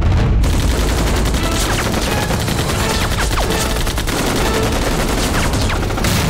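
Dense battle gunfire: rifles and a machine gun firing rapidly and without pause, starting abruptly, with several falling whistles over the shots.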